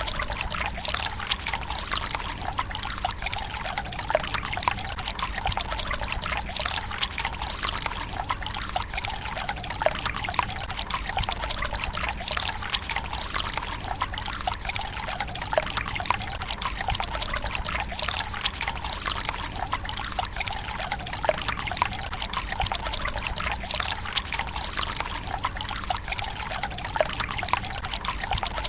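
Water running from a bamboo spout into the stone basin of a Japanese tsukubai: a steady splashing trickle full of small irregular drips.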